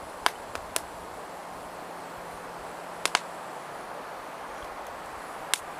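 Outdoor forest ambience: a steady soft hiss broken by a few short, sharp clicks, three in the first second, a close pair about three seconds in, and one near the end.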